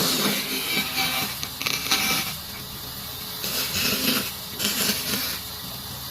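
A woodworking tool working wood in repeated noisy strokes, each about a second long, with short quieter pauses between them.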